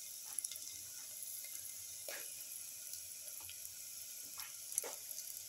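Sliced onions sizzling quietly in oil in a pan: a steady high hiss, with a few light clicks and short scrapes.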